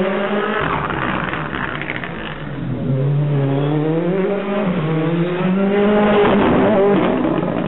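Rally car engine on a special stage: the revs drop as it brakes into a hairpin about a third of the way in, then climb through the gears, loudest as the car passes close near the end.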